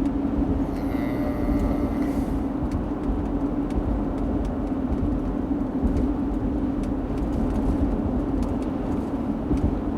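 Steady engine and road noise of an all-wheel-drive truck under way, heard from inside the cabin: an even low rumble with a steady hum.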